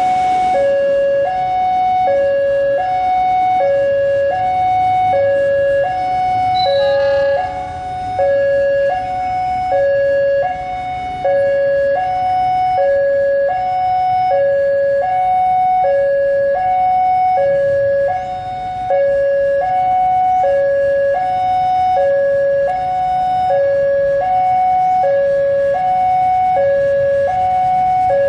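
Electronic railway level-crossing warning alarm sounding continuously, alternating steadily between a high and a low tone about once a second, warning that a train is approaching. A low rumble from the approaching diesel-hauled train runs beneath it.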